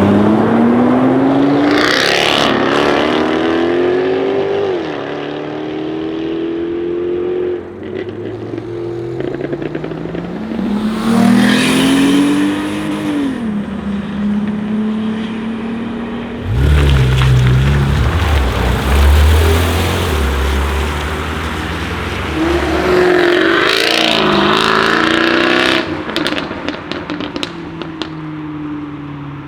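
Jaguar F-Type V8 R's 5.0-litre supercharged V8 accelerating hard several times, its exhaust note climbing in pitch and dropping back at each gear change, with a deep low rumble in the middle. Near the end, a run of short sharp crackles from the exhaust as it lifts off.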